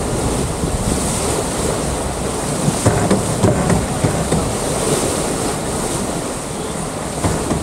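Wind buffeting the microphone and water rushing along the hull of a sailing yacht under way, with a couple of short knocks about three seconds in.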